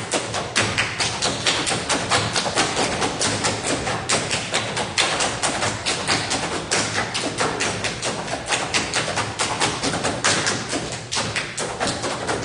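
Ensemble table-top percussion: hands striking a table in a fast, steady rhythm of dense taps and thumps.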